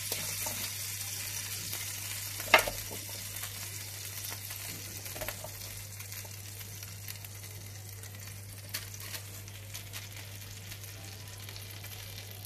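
Fat and juices on a hot roasting tray sizzling steadily around a part-roasted chicken, slowly dying down, while raw potato cubes are added to the tray. A sharp knock about two and a half seconds in, and a few lighter taps later.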